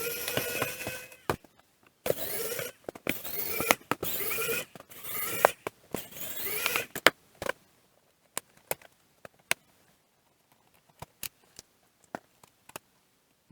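Plastic housing of a digital microscope being worked open by hand: scraping and squeaky creaking from about two to seven seconds in, then a scatter of light clicks and taps.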